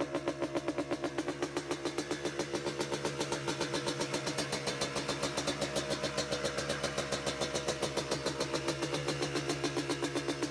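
Yamaha Blaster's single-cylinder two-stroke engine idling steadily with an even pulse.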